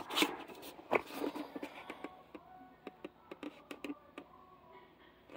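Scattered light clicks and taps from a boxed plastic socket-set case being handled, with a sharper click about a second in.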